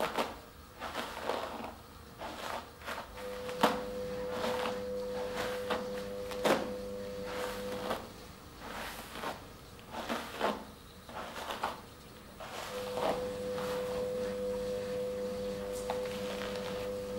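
Hairbrush strokes and hand handling through wet hair: irregular soft knocks and swishes at a second or so apart. A steady low hum joins twice for several seconds.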